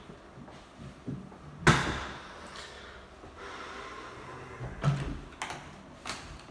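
Interior doors being handled in an empty, echoing apartment: a sharp bang a little under two seconds in that rings on in the bare room, then a few softer knocks and clicks near the end as a closet door is opened.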